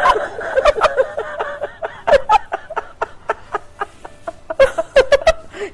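Rapid, irregular clucking: short pitched calls mixed with sharp clicks.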